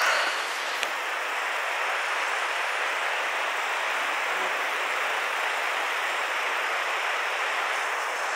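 Steady rushing of a fast-flowing river: an even, unbroken hiss of water.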